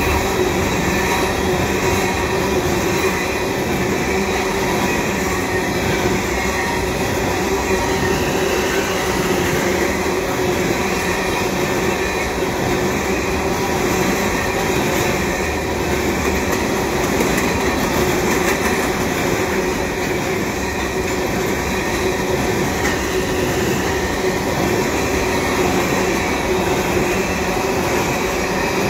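Freight train tank cars rolling past: a steady, continuous rumble of steel wheels on the rails.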